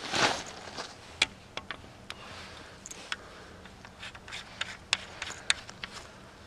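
A brief crunching rustle at the start, then scattered sharp clicks and soft rubbing as hands work a baitcasting fishing reel and rod.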